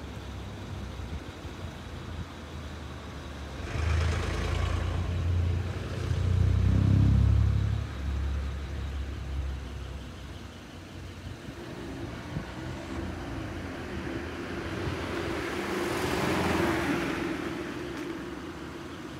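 A car's engine and road sounds: a deep rumble swells about four seconds in, is loudest around seven seconds, then fades, with a second, hissier swell near the end.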